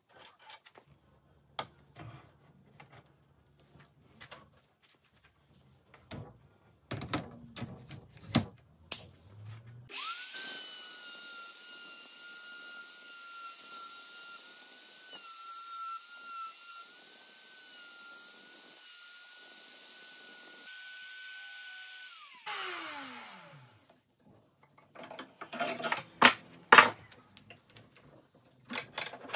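AEG router spinning up about ten seconds in and running at steady speed for about twelve seconds as its bit cuts a round tenon on the end of an oak leg, its whine dipping slightly in pitch under the cut; then switched off, winding down with a falling whine. Knocks and clicks of the jig being handled and adjusted before and after.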